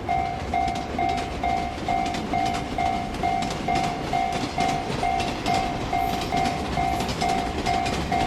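Japanese railroad crossing warning bell ringing in an even rhythm, about two and a half strikes a second, while a train passes with a steady rumble and rail clatter.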